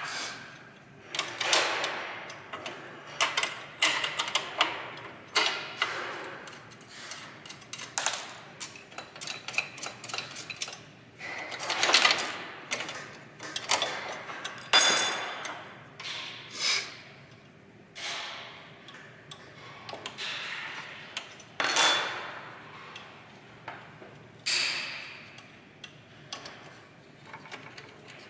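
Hand tools and metal parts clinking, clicking and clattering in irregular knocks during disassembly of electronic equipment, with a couple of brief metallic rings.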